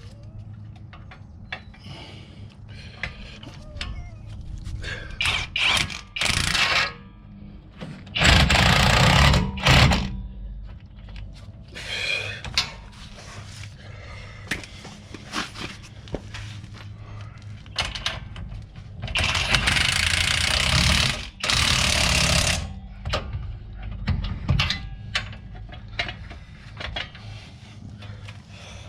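Power wrench running bolts in, in about five bursts of a second or two each, the longest and loudest around nine seconds in, with small clicks and knocks of tools and parts between them.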